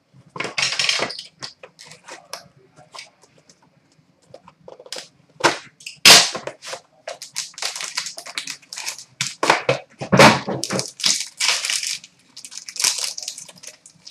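Crinkling, tearing and rustling of packaging as a sealed box of trading cards is opened by hand, in irregular sharp crackles and short rustling bursts, loudest about six seconds in and again about ten seconds in.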